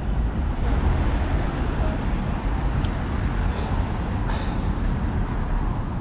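Wind buffeting the bike-mounted camera's microphone in a steady, heavy rumble, with road traffic passing alongside.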